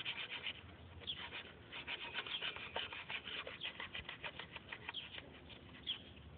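A fast run of short, scratchy rubbing strokes by hand on a surface, densest through the middle, with a few short high chirps over it.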